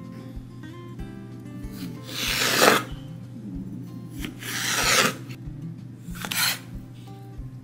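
Chef's knife drawing through eggplant on a wooden cutting board: two long slicing cuts, then a shorter cut through a mushroom. Soft background music with a steady beat runs under it.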